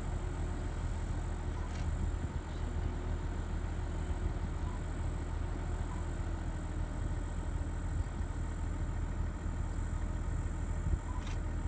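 A vehicle engine idling with a steady low hum, under a continuous high-pitched whine.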